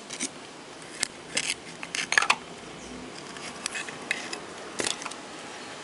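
Dynamic microphone's body and parts being handled and fitted back together: a series of short clicks and scrapes, busiest about two seconds in.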